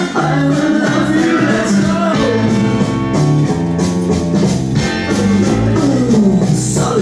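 Music with a steady, repeating bass line, playing loud throughout.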